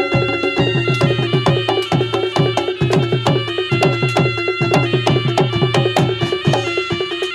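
Javanese reog/jaranan gamelan music played live: fast, dense percussion with low drum strokes that drop in pitch, over held ringing metallic tones.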